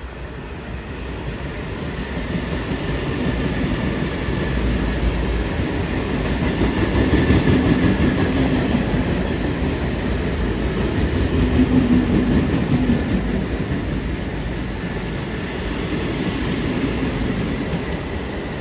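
Train running past, its noise building over the first several seconds and staying loud.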